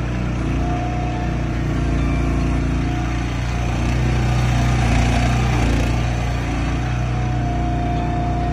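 Landward XT12 excavator's engine running steadily while the machine is operated, getting slightly louder and busier for a couple of seconds around the middle.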